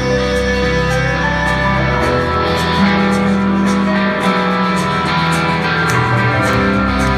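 Rock band playing live over a stadium PA, heard from far back in the crowd: electric guitars ringing over bass, with regular cymbal strokes.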